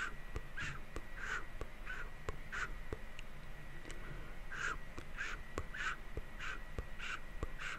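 Close-miked ASMR mouth sounds: a run of short, evenly paced sounds about one and a half a second, with fainter clicks between them, breaking off for a moment about three seconds in and then picking up again.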